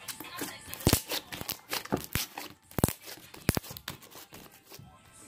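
Slime being squeezed and stretched in the hands, giving a string of sharp, wet pops and crackles, some in quick pairs.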